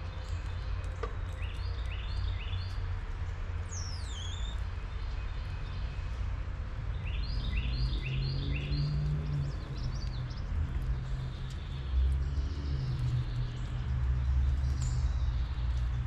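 Wild songbirds calling: two runs of four or five quick rising notes, and one high note sweeping downward between them, over a steady low rumble.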